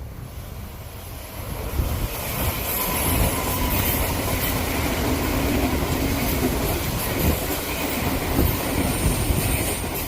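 Odakyu Line electric train passing close by. It swells about two seconds in and runs loudly with the wheels clattering over rail joints, then begins to fade near the end.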